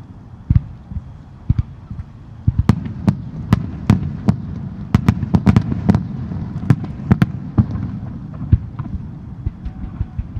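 Fireworks display: a rapid, irregular run of sharp bangs over a continuous low rumble. The bangs come thickest through the middle and thin out near the end.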